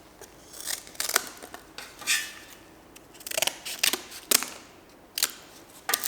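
Hand snips cutting: a run of sharp, irregular clicks and short rasping cuts with brief pauses between them.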